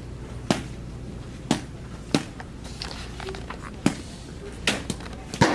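A series of six sharp knocks or thumps, unevenly spaced about a second apart, over a low steady background hum.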